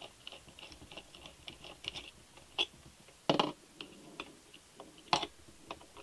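Screwdriver working out the small screws of a PWK-style slide carburettor's top cap: light, irregular clicks and ticks of metal on metal, with two louder knocks a little after three seconds and about five seconds in.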